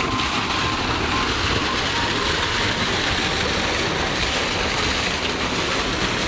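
Water from a running Kirloskar pump gushing out of its steel discharge pipe and splashing into a water-filled pit: a steady rushing splash.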